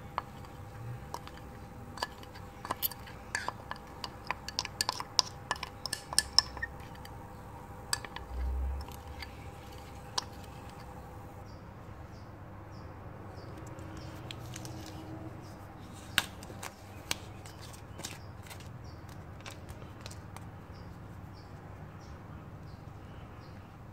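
Glass jar clinking and tapping against a plastic pipe mould in quick sharp clicks for several seconds while a white slurry is poured out of it. After that come a few light knocks as the set casting in its mould is handled.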